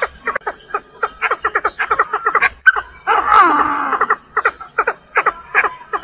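Hen Chinese francolin calling in a rapid series of short clucking notes, about five a second, the hen's call that draws cock birds. About three seconds in, the notes give way for a second to a longer, harsher stretch of sliding, falling notes.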